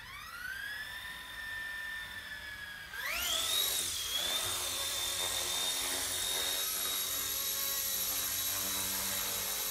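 Small electric rotor motors of an RC ERA C138 Bell 206 helicopter spinning up with a high whine. About three seconds in, the pitch and loudness step up as the throttle is raised, and the whine then holds steady.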